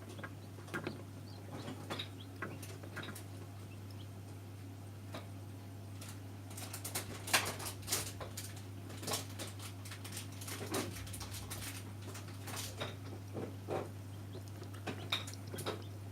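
Newly hatched chicks scrabbling and pecking inside an incubator: scattered light taps and scratches, busiest in the middle, over a steady low hum.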